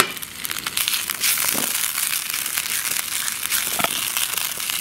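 Sticks of Japanese yam sizzling in melted butter in a frying pan over a wood campfire: a steady frying hiss full of small pops and crackles while the pan is shaken.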